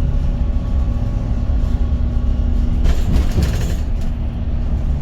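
Electric bus running, a steady low rumble with faint steady whine tones over it, and a short burst of hiss about three seconds in.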